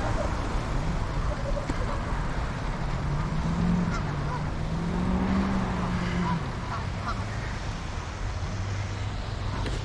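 Wind and riding noise from a bicycle moving along a snowy path, a steady rushing rumble. A low droning hum rises and falls slightly in the middle, and a lower hum comes in later.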